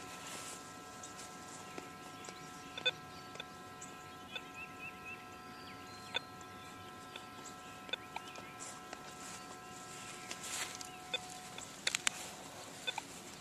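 Minelab E-Trac metal detector giving a faint, steady tone while pinpointing a target in the ground. The tone stops about 11 seconds in. Scattered small clicks and a few short chirps can be heard.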